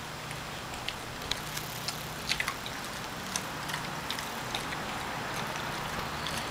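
A Rottweiler chewing raw mackerel: irregular sharp, crunching clicks, most of them between about one and four and a half seconds in, over a steady low background hum.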